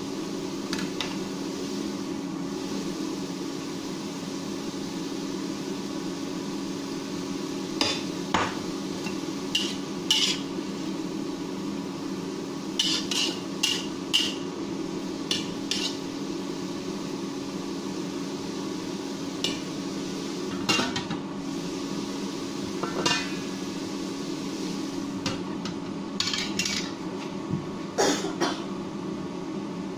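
Metal spatula knocking and scraping against a steel wok while stir-frying, in scattered sharp clanks and small clusters, over the steady hum of an induction cooktop. The last loud clank comes as the stainless steel lid is set on the wok.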